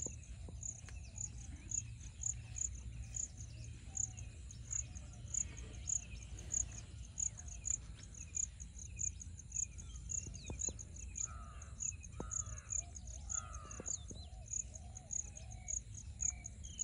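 An insect chirping in high, evenly spaced pulses about twice a second, with birds calling in the background, three louder bird calls coming in a row past the middle.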